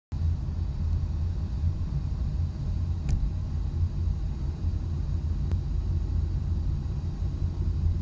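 Steady low rumble of a car's engine and road noise heard from inside the cabin while driving, with two faint clicks about three and five and a half seconds in.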